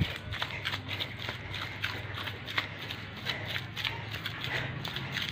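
Feet treading and stamping a wet mix of clay and sand, with quick, irregular squelching slaps, as the clay and sand are worked together into a pottery clay body.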